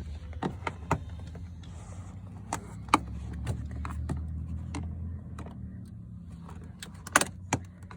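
Scattered sharp clicks and knocks of a plastic interior trim cover being pried at with a flat screwdriver, the loudest snaps about three seconds in and near the end, over a steady low hum.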